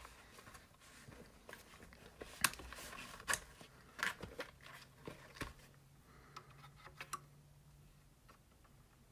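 A few faint, sharp clicks and taps from a plastic pry tool being handled against a speaker's plastic front baffle.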